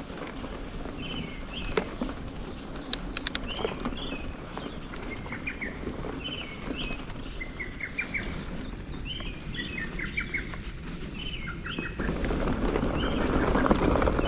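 Songbirds singing short, repeated phrases over the rolling noise of mountain bike tyres on a dirt trail, with a few sharp clicks from the bike. The tyre noise grows louder near the end.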